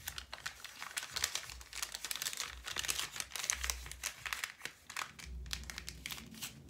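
Crinkling and rustling of paper and clear plastic wrapping being handled: a dense run of crackles that thins out after about five seconds.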